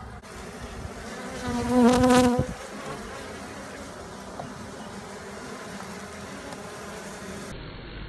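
Honeybees buzzing in an opened top-bar hive. About two seconds in, a louder buzz lasting about a second wavers in pitch as one bee flies close past the microphone.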